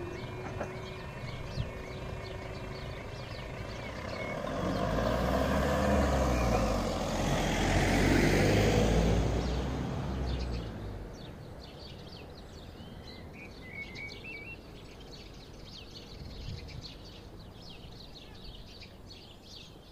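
Level-crossing barriers rising as the crossing's repeating alarm tone ends about three seconds in. Then cars and a pickup truck drive over the crossing, passing loudest around the middle, before it settles to quieter background with birds chirping.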